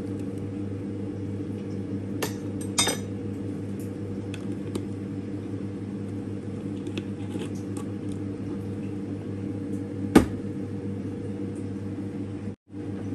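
Steady low hum of a running kitchen appliance, with a few clinks of dishes and utensils; the sharpest clink comes about ten seconds in, and the sound drops out for a moment near the end.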